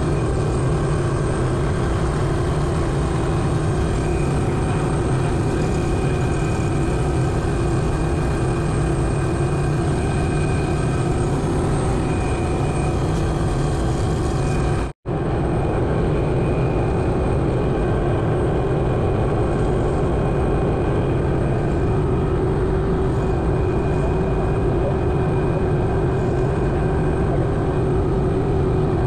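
Helicopter engine and main rotor running steadily on the ground after start-up, a steady high whine over the dense rotor and engine noise, heard from inside the open-door cockpit. The sound cuts out for an instant about halfway.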